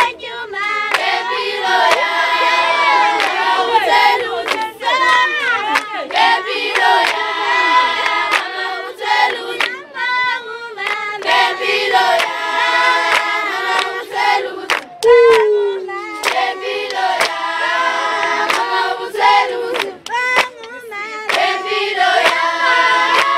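Group of young Zulu women singing a traditional call-and-response song in unison while clapping sharply in rhythm. A loud falling call cuts across the singing about fifteen seconds in.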